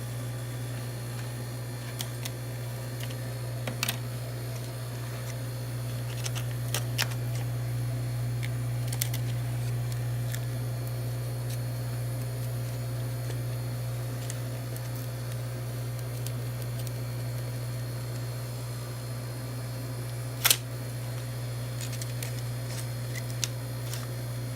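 Steady low machine hum with scattered light clicks and taps, the sharpest one about twenty seconds in.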